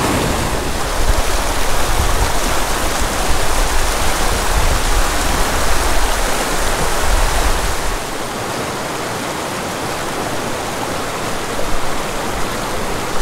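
Small mountain creek rushing over a rocky cascade, a steady whitewater hiss. A deep rumble under it drops away about eight seconds in, leaving the hiss slightly quieter.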